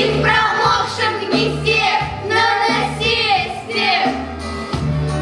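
Children singing a song over a recorded backing track with a steady bass beat.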